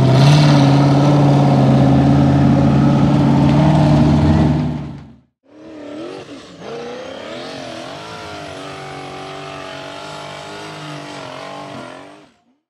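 Turbocharged LS1 V8 of a Formula Offroad buggy running hard on a hill climb. Its pitch steps up at the start and then holds steady before fading out about five seconds in. A quieter sound with a wavering pitch follows until near the end.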